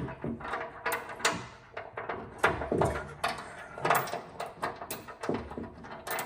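Irregular metal knocks, clunks and scrapes as a steel trailer hitch is shifted into place under the truck to line up its bolt holes.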